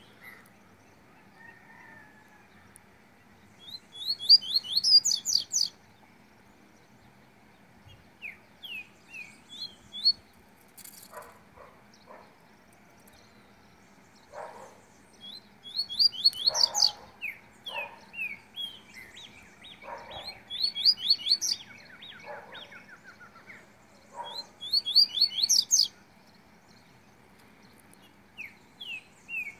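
Songbirds singing: bursts of quick, high rising notes about every four to five seconds, with softer short chirps in between.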